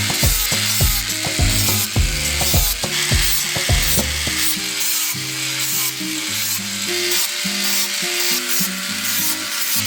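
Background music with a steady beat, over a continuous hissing noise of workshop tool work.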